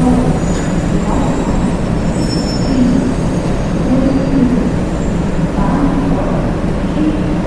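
Train station ambience: a train's steady low rumble, with a few faint high-pitched wheel squeals in the first few seconds.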